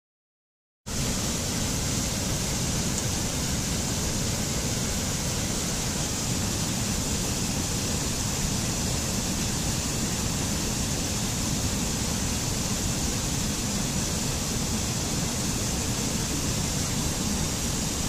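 Mountain stream rushing over rocks and small cascades: a steady, even rush of water that starts abruptly about a second in and cuts off suddenly near the end.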